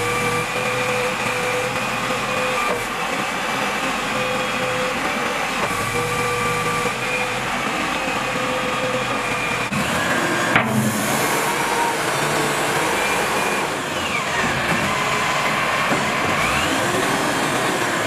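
Backhoe loader's diesel engine running steadily under hydraulic work, with a steady whine over it. There is an abrupt break about ten seconds in, and the pitch dips and rises a few times near the end.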